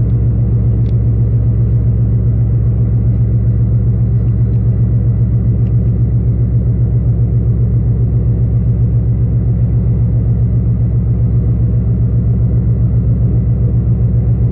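A ship's diesel engine running steadily, a low, even throb with a rapid regular pulse and a faint steady whine above it.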